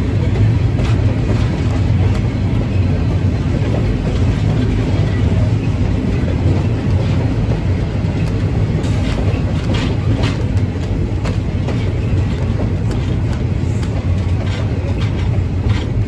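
Steady low rumble of a train rolling along, heard from aboard a passenger car, with scattered light clicks and knocks from the running gear.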